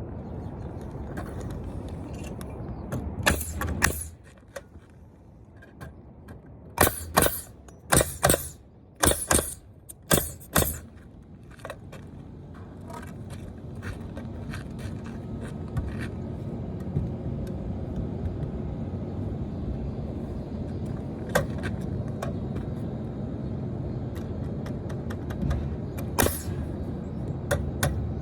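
Pneumatic nail gun firing into wood framing: two shots, then a quick run of about eight shots a few seconds in, with single shots later. A low steady hum fills the background and grows stronger in the second half.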